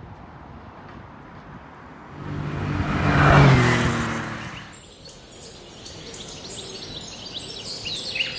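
A vehicle passes by, its engine and tyre noise rising to a peak about three and a half seconds in and then fading away. Birds then chirp over a steady high hiss.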